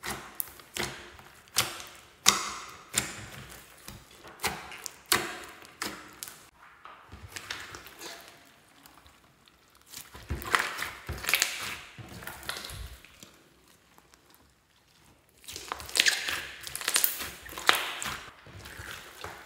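Hands kneading and pressing a large glossy slime, making sticky pops and clicks about once a second, then denser crackling squelches in two longer stretches later on.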